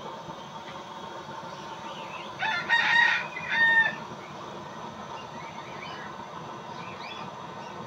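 A rooster crows once, about two and a half seconds in: a longer wavering part followed by a short held note. Under it runs a steady hiss.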